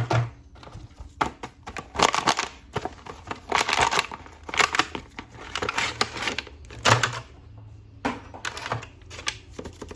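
Toy packaging being handled and opened: irregular bursts of crinkling and rustling, in clusters of a second or so.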